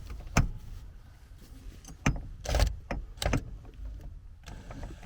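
A few sharp knocks and clunks, four in all, spaced irregularly over a low rumble.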